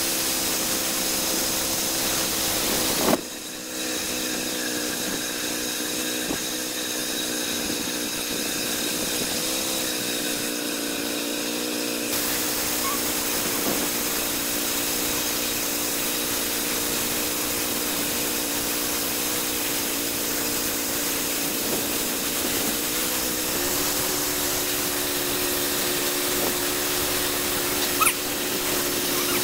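Homemade bandsaw sawmill cutting through a frozen log: its small gasoline engine runs steadily under load over a continuous hiss of the blade and spraying sawdust. The engine note drops slightly about 23 seconds in. A sharp knock about three seconds in is the loudest moment, and there is a smaller click near the end.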